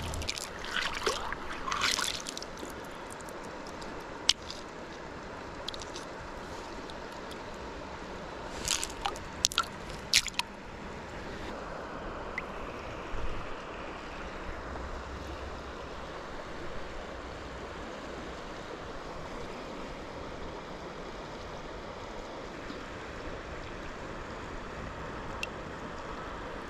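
Shallow river water running steadily over a cobble bed. Hands slosh in the shallows lifting stones over the first couple of seconds, and a few sharp clicks come about nine to ten seconds in.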